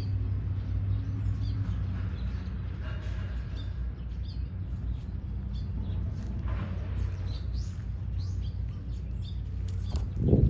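Small birds chirping in short, scattered calls over a steady low hum, with a brief loud low thump near the end.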